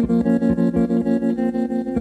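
Instrumental break in a slow song: plucked guitar with a heavily effected sound over a regular low pulse.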